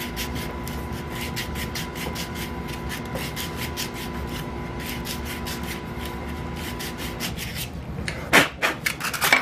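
Sandpaper wrapped on a wooden dowel rasping inside a black plastic pipe sleeve in quick, even strokes, sanding out the bore so the webcam will slide in. Two louder knocks near the end.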